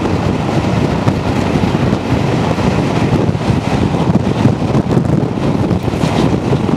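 Steam-hauled train running at speed, heard from an open carriage window, with heavy wind buffeting the microphone.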